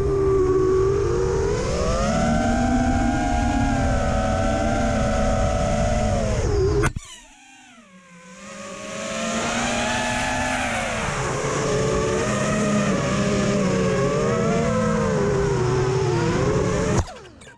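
Racing quadcopter's four brushless motors (EMAX RS2205 2600kv) spinning 5-inch three-blade props, a whine that rises and falls in pitch with the throttle over a rushing rumble. About seven seconds in the throttle is cut and the whine nearly dies away for a second or two, then climbs back. It stops abruptly near the end.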